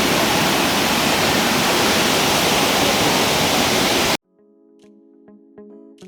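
Brandywine Falls' water rushing in a loud, even roar of noise. It cuts off suddenly about four seconds in, and quiet background music with light clicks follows.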